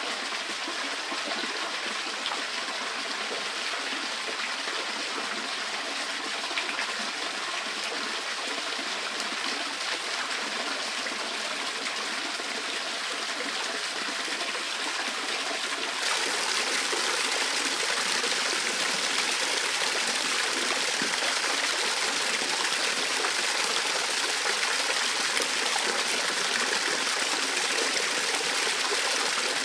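Spring water running and trickling in a steady flow, turning louder about halfway through.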